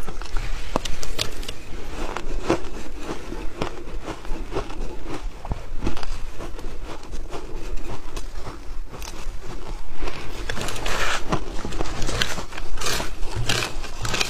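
Shaved ice crunching and crackling as it is chewed, a dense run of small irregular cracks and clicks. Near the end a metal spoon scrapes and stirs through the ice in a plastic bowl.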